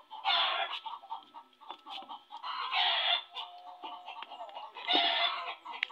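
Chickens clucking, with three short loud calls: one just after the start, one around the middle and one near the end.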